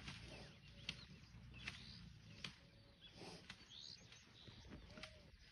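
Faint birds chirping, short scattered calls over a low background rumble, with a few sharp clicks.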